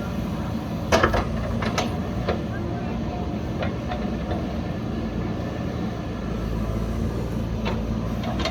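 JCB backhoe loader's diesel engine running steadily at work, with a few sharp knocks, the loudest about a second in.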